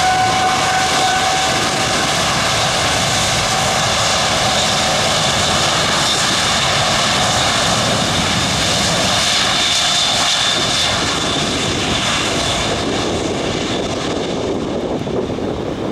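Boeing 787-8 jet engines at takeoff thrust during the takeoff roll: a whine that rises slightly and then holds over a loud rushing. The highest part of the sound fades in the last few seconds as the airliner passes and moves away.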